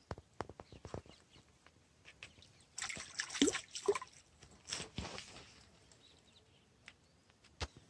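A hooked fish splashing at the water's surface as it is hauled in on a hand line, in two short bursts about three and five seconds in. A sharp click near the end.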